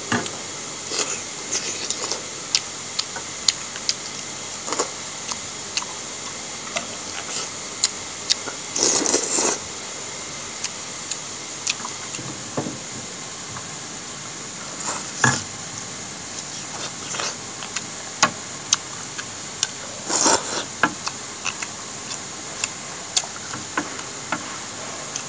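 Eating sounds: chopsticks clicking against a glass bowl and the mouth sounds of eating noodle soup and pork hock, as scattered sharp clicks over a steady hiss. Two longer, noisier sounds come about nine and twenty seconds in.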